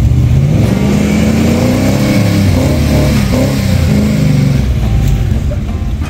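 Four-wheel-drive engine revving, rising and falling in pitch in repeated surges, as the vehicle works through a muddy, water-filled track.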